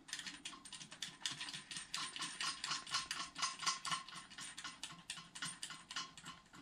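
Quick, light clicking, several ticks a second, of a nut being spun on by the fingers onto a toilet's tank-to-bowl bolt, threads and nut ticking as they turn.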